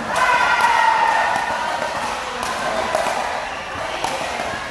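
Pickleball paddles striking the ball in play: sharp hollow pops about once a second, over a murmur of hall chatter.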